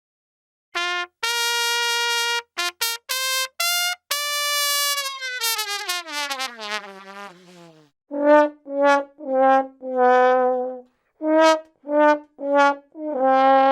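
Comic brass sound effects: a few short and held trumpet-like notes, then a long note that slides down in pitch and fades. After a short gap comes a run of about nine short, lower brass blasts.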